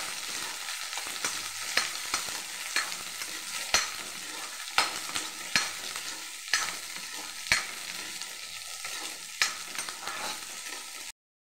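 Shallots sizzling in hot oil in a metal pan while a spatula stirs them, scraping and knocking against the pan about once a second. The sound cuts off suddenly near the end.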